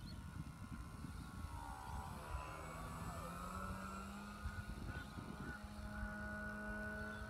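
Electric brushless motor and propeller of an RC Tiger Moth biplane droning in flight. The pitch slides down about two to three seconds in, then holds a steady tone. A low rumble runs underneath.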